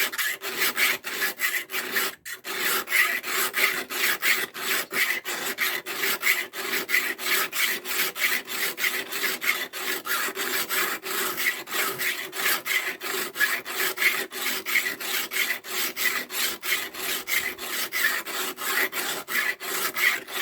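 Steel of a Victorinox pocketknife scraped back and forth on a dry diamond sharpening stone in quick, even strokes, with a brief pause about two seconds in. The stone is grinding metal away only very slowly.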